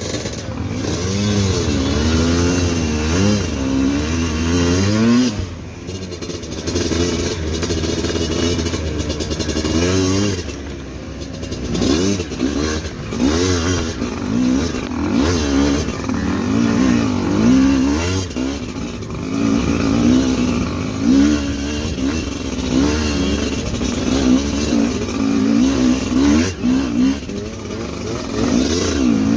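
Motorcycle engine repeatedly revving up and falling back under load while climbing, with wind and rumble noise on the microphone.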